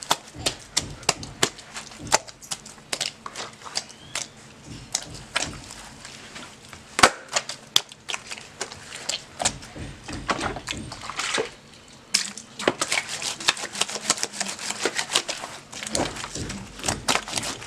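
Soaked velvet huipil pressed and kneaded by hand against a stone washbasin: wet fabric sounds with many small, irregular clicks and crackles, denser near the end.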